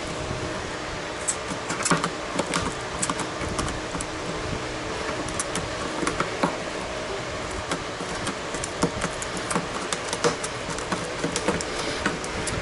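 Irregular sharp cracking and snapping as the lens of a Ford Transit headlight assembly is pried off its housing with a small screwdriver: the sound of the heat-softened glue seal coming apart.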